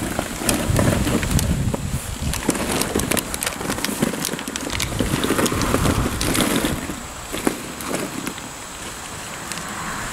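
Hollow plastic ball-pit balls clattering and knocking against each other in quick, irregular clicks as hands dig through a pool full of them, with wind rumbling on the microphone.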